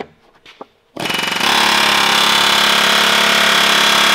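Pneumatic air hammer rattling steadily at full speed, starting about a second in, driving a seized, bent grade 8 bolt out of a red-hot steel sleeve held in a bench vise.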